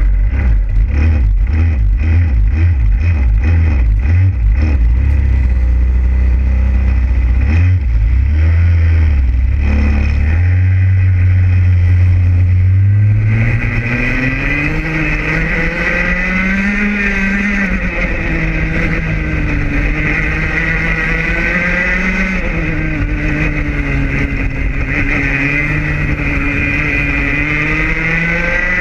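Racing kart engines heard from onboard: for about the first dozen seconds a low, uneven pulsing as the karts sit and roll off the grid. From about thirteen seconds in, the engine note climbs and then wavers up and down as the kart accelerates and runs at speed on the track.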